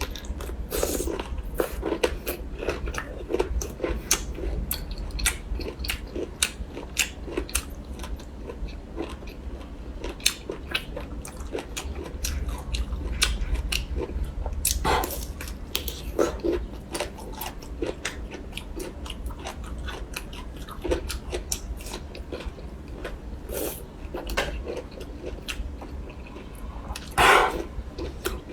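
A person biting and chewing crunchy bamboo shoot close to the microphone, with many sharp crunches and a steady low hum underneath. A louder, longer noise comes about a second before the end.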